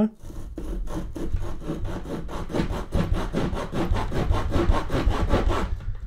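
Victorinox Ranger 55 folding pocket-knife saw cutting through a dry, weathered branch in rapid, even back-and-forth strokes, stopping near the end. The saw bites through cleanly.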